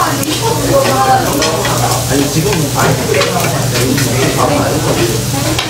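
Meat sizzling on a tabletop Korean barbecue grill while it is turned with metal tongs, with a steady hiss and scattered light clicks of the tongs against the grill.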